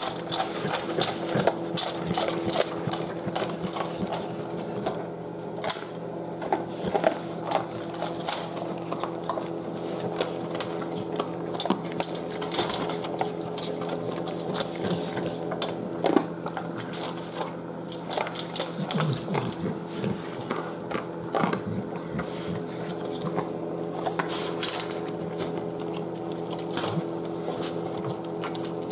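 An American Bully eating from a metal pan, with wet chewing and licking and the pan knocking and scraping many times, over a steady mechanical hum.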